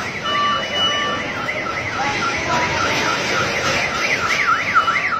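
An electronic siren or alarm sweeping rapidly up and down in pitch, a few sweeps a second, changing to slower, wider and louder sweeps about four seconds in, over a steady wash of street noise.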